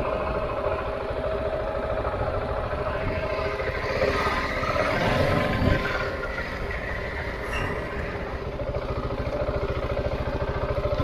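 Husqvarna 701's single-cylinder engine running steadily under way as the motorcycle is ridden, pulling a little harder for a couple of seconds about four seconds in.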